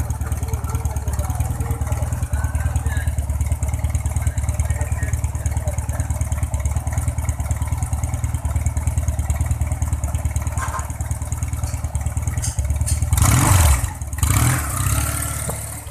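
A 1979 Honda CD200 Roadmaster's parallel-twin engine idling steadily through its exhaust, then revved twice in quick succession near the end before dropping back.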